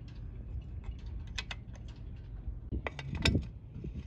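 Light metallic clicks and clinks of a hand tool against an outboard motor's lower unit, with a louder knock about three seconds in.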